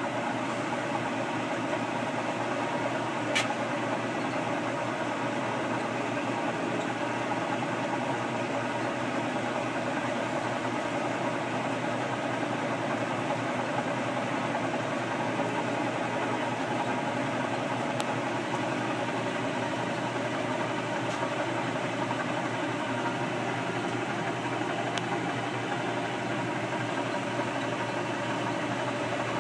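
Top-loading washing machine running with a water load, a steady motor hum and churn from the tub, with one sharp click a few seconds in.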